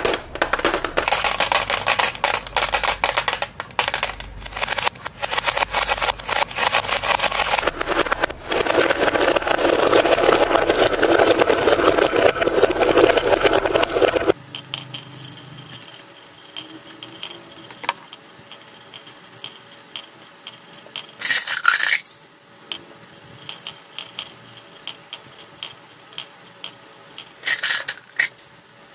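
Many glass marbles rolling and clattering down the grooves of a wooden wave slope and dropping into a plastic toy truck's bed, a dense continuous clatter. About halfway through it gives way to quieter, scattered clicks of single marbles, with two short louder rattles near the end.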